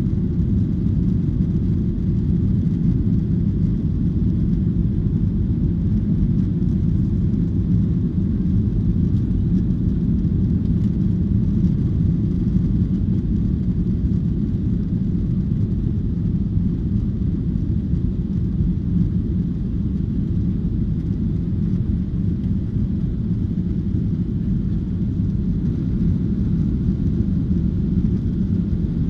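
Boeing 737-800 cabin noise during the climb after takeoff: a steady, low drone of its CFM56-7B turbofan engines and the airflow over the fuselage, heard from inside the cabin.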